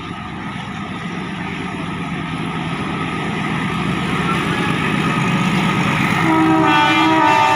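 WDS-6R diesel shunting locomotive approaching with a freight train: engine and rail noise growing steadily louder as it nears. About six seconds in, the locomotive's horn sounds a long steady blast.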